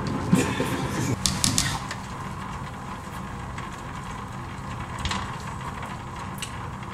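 Spatula knocking and scraping inside a blender jug as thick pesto is scraped out. A few sharp clicks come in the first two seconds, then quieter scraping with occasional faint ticks.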